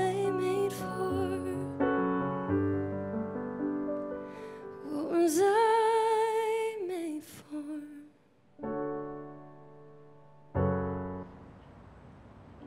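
A woman sings a slow ballad with vibrato over piano chords, the sung line holding long notes and ending about seven seconds in. Two last piano chords follow, about a second and a half and three seconds later, each left to ring and fade.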